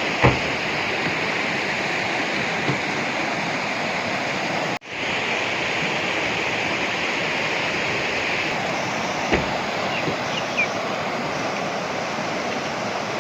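Steady rush of flowing water, with a brief break just under halfway through and a few faint clicks.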